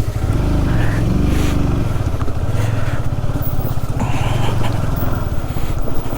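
Honda CBR150R's single-cylinder four-stroke engine running at low revs under load. The revs rise briefly about half a second in, then settle back to a steady pull.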